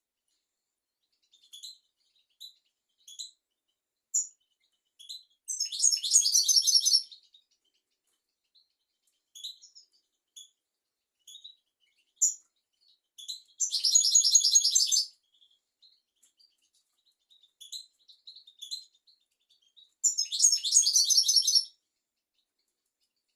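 European goldfinch singing: scattered short high chirps broken by three dense, rapid trilled phrases of about a second and a half each, roughly every seven seconds.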